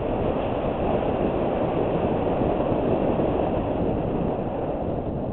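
Wind buffeting a helmet-mounted camera's microphone, together with the rumble of mountain-bike tyres on a dirt trail, during a fast downhill ride: a steady, dense rush.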